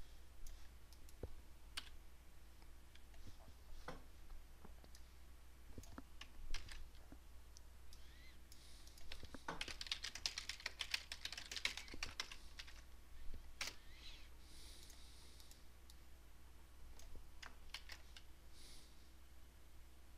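Faint typing on a computer keyboard, with scattered single clicks and a quick run of keystrokes near the middle.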